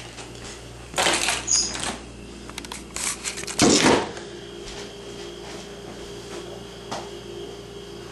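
Handling noise from a handheld camera: rustling and clattering knocks twice in the first four seconds, the louder second one as it is set down on a hard countertop. After that comes a steady low hum, with a single light click near the end.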